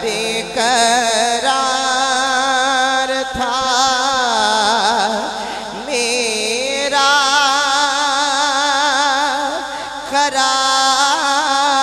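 A man's voice singing a devotional Urdu naat in long, wavering held notes, over a steady low drone.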